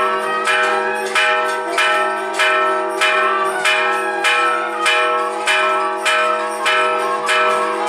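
Large temple bell rung steadily, about two strikes a second, each stroke ringing on under the next.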